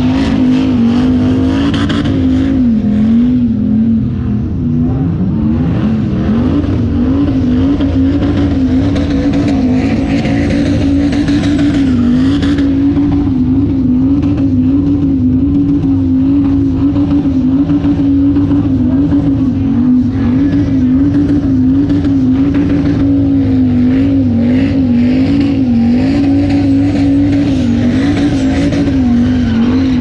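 Car doing a burnout in circles: the engine is held at high revs, its pitch wavering slightly up and down, over the noise of spinning, squealing tires.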